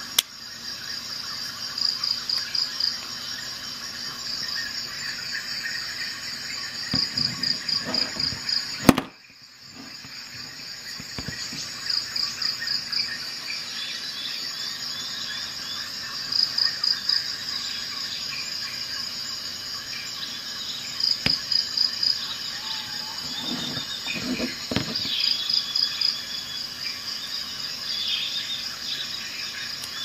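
Insect chirping: short runs of about seven rapid chirps repeat every few seconds over a steady high hum, with faint bird-like calls in between. A single sharp click about nine seconds in is the loudest sound.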